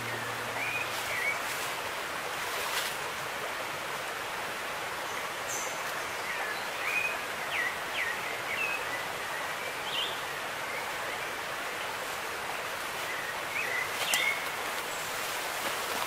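Forest ambience: a steady rushing hiss with short bird chirps scattered through it, plus a few brief clicks.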